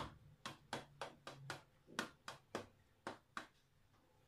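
Knife point jabbed again and again through a baked basbousa (semolina cake) into its ceramic dish: a quick run of light taps, about three a second, stopping about three and a half seconds in.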